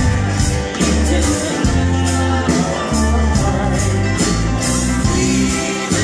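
Live country band playing an instrumental passage: drums keep a brisk, steady beat under bass notes, acoustic guitar and mandolin.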